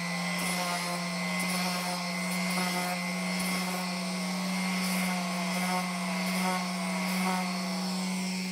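Handheld electric orbital sander running against the metal top of a ship's lamp, sanding it down. Its motor gives a steady hum, with a whine that slides down in pitch again and again as the pad works the metal.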